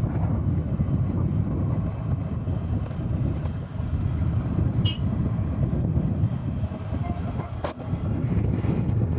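Wind buffeting the microphone and the low rumble of a two-wheeler's engine and tyres while riding on a road. A short high chirp sounds about five seconds in.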